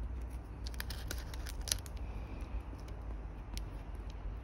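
Paint brush dabbing and spreading adhesive on hot tub vinyl, giving a cluster of small sharp ticks and scratches about a second in and one more later, over a steady low hum.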